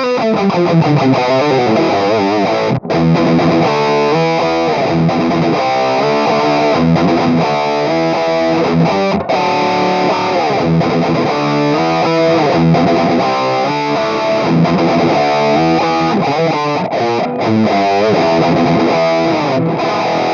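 Electric guitar played through the Flatsons KE1 multi-effects pedal's Peavey 5150 high-gain amp model: distorted riffs and chords, with brief stops about three and nine seconds in.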